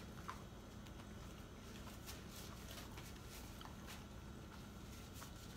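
Faint chewing and wet mouth clicks from people eating po' boy sandwiches, scattered small ticks over a steady low room hum.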